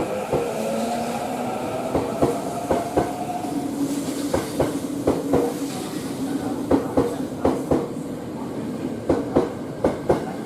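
Tobu electric train pulling out of the station: its motors whine, rising in pitch over the first few seconds as it gathers speed, then the wheels clack over the rail joints in quick groups as each car rolls past.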